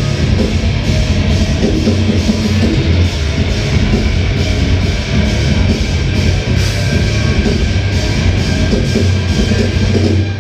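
Live rock band playing loud, with drum kit and guitars.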